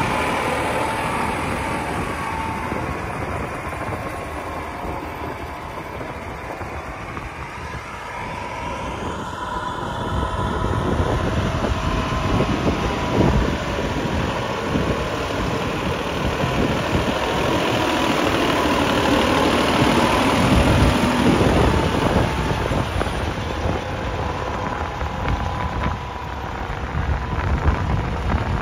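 New Holland 5620 common-rail diesel tractor engine running under load while pulling a tine cultivator through the soil. It gets louder about ten seconds in, and its pitch wavers around twenty seconds in.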